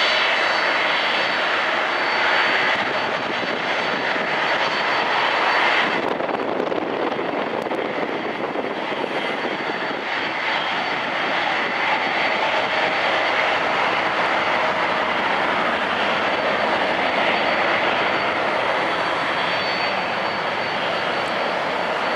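Jet airliner engines running as a twin-engine airliner touches down and rolls out on the runway: a steady rushing noise with a thin high whine. The sound changes abruptly about six seconds in.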